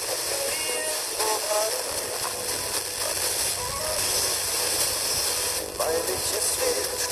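TEF6686 FM receiver tuned to a weak, distant station: a steady static hiss over faint, fading speech and music.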